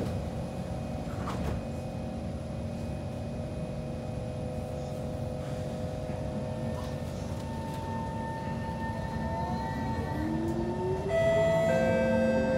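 Interior of a Kawasaki C151 metro train pulling away: steady electric traction motor whine over rail rumble, with a tone rising in pitch near the end as the train accelerates. A louder set of steady tones comes in near the end.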